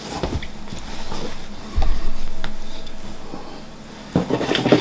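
Rummaging and handling items in a cardboard shipping box: scattered clicks and knocks, a dull thump just under two seconds in, and a burst of rustling near the end.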